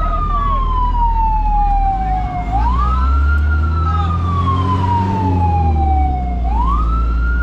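Fire truck siren wailing in slow cycles, each a quick rise in pitch followed by a long fall. New cycles start about two and a half and six and a half seconds in, over a steady low engine rumble.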